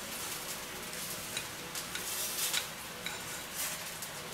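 Knife and fork cutting through a grilled cevapcici on a ceramic plate: scattered light scrapes and clicks of the cutlery against the plate, a little louder around the middle, over a steady hiss.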